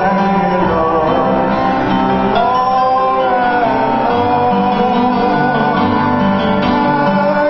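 A man sings the responsorial psalm into a microphone, with acoustic guitar accompaniment.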